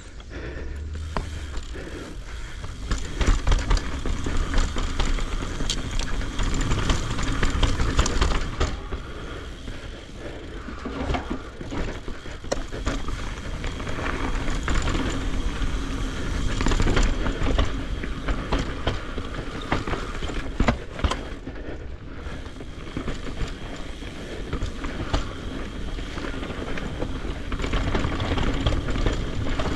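Mountain bike descending a rough dirt trail: tyres rolling and crunching over dirt and rocks, with the frame and chain rattling and knocking over bumps, and a steady low rumble of wind on the helmet camera's microphone.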